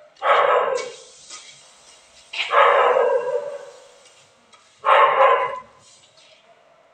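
A dog barking three times, a couple of seconds apart.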